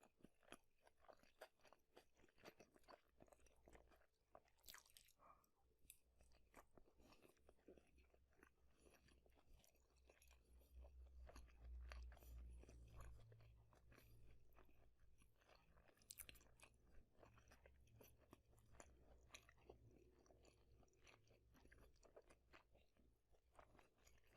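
Close-miked eating: wet chewing with crunchy bites of fast food, irregular clicks and smacks throughout. A low rumble rises about ten seconds in and eases off a few seconds later.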